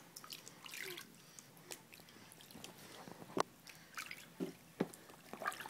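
Small water splashes and drips in a plastic infant bathtub as the baby moves in the water, scattered and irregular, with one sharp click about three and a half seconds in.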